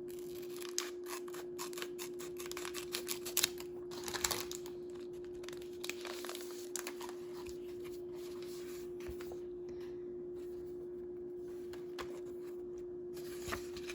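Scissors snipping and paper and plastic packaging rustling as a small pack is cut open, in scattered clicks mostly in the first half, over a steady low hum.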